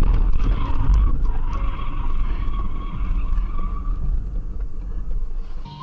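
Car tyres squealing in a skid on a highway over loud road rumble, the squeal fading out after about four seconds; the sound cuts off near the end.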